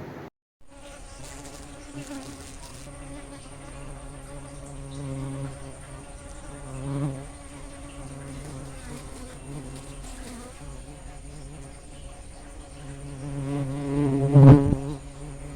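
Giant honeybees buzzing in flight around a feeder, a low steady hum that swells as bees come near. One bee passes very close and loud near the end. A faint, steady high-pitched tone runs underneath.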